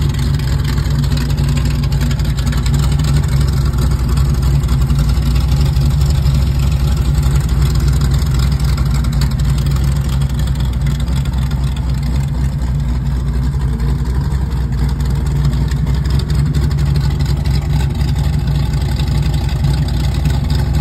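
Hot-rodded 1927 Ford Model T coupe's V8, topped with twin four-barrel carburettors and breathing through open header pipes, idling steadily.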